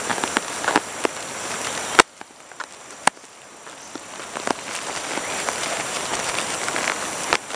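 A stiff black plastic meal tray handled and turned over in the hands, with scattered clicks and crackles of the plastic and one sharp click about two seconds in, as its tightly sealed lid is worked at.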